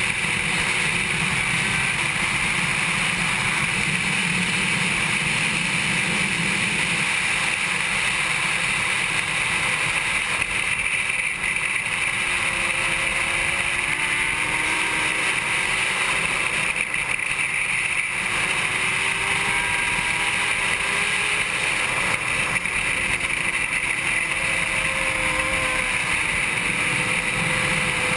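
Steady wind rush on the onboard camera's microphone at racing speed over a 2007 Honda CBR 600RR's inline-four engine, its pitch gliding up and down through the corners, most clearly in the second half.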